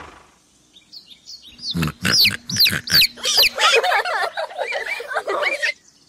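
Farm-animal sound effect: a rapid run of many overlapping high-pitched squeals and peeps, starting about a second in and stopping just before the end. At the very start the tail of background music fades out.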